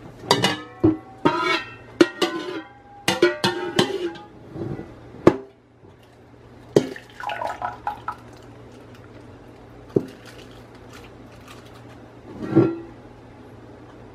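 Glass measuring cup knocking and scraping against the rim and side of a metal cooking pot while liquid is scooped out, a run of sharp clinks in the first five seconds, some ringing out briefly, then fewer, sparser knocks.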